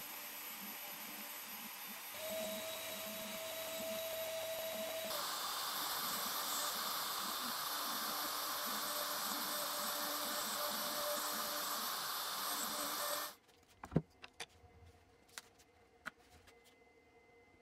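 CNC router running steadily as a V-bit carves lettering into an end-grain wooden board. A thin steady whine joins about two seconds in, and the machine gets louder from about five seconds in. It cuts off abruptly near thirteen seconds, leaving near quiet with a few light clicks and one sharp knock.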